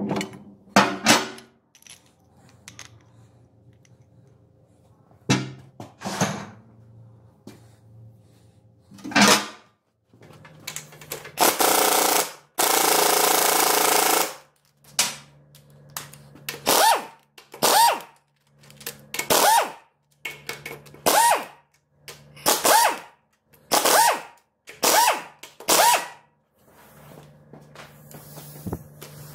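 Impact wrench running in short repeated bursts, about a dozen in the second half, with a longer continuous run in the middle, as it undoes gearbox bolts. A few single metal knocks come in the first part.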